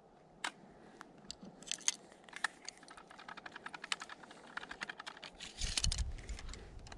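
Small metallic clicks and rattles of a rimfire rifle's tubular magazine being loaded: the brass inner magazine tube worked out and back in at the muzzle end, with cartridges and metal parts clicking. There is a brief rumble of handling near the end.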